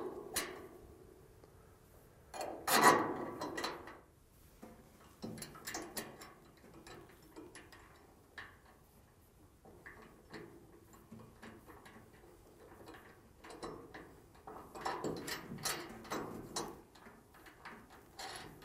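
Metal L bracket and its carriage bolts being handled and fitted against a steel header tube: scattered light clicks, knocks and scrapes, with a louder knock about three seconds in and a busier run of them near the end.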